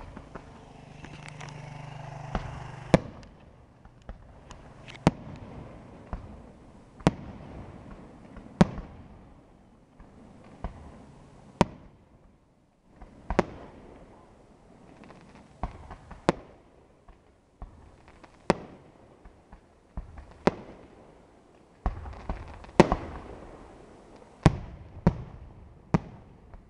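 Aerial firework shells bursting in a steady sequence: a sharp bang roughly every one and a half to two seconds, each trailing off in an echoing rumble, with softer thumps between them.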